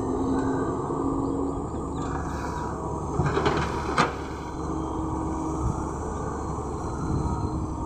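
LiuGong hydraulic excavator's diesel engine running steadily under load as the arm swings and the bucket digs into the dirt, with a few knocks about three seconds in and one sharp knock about four seconds in.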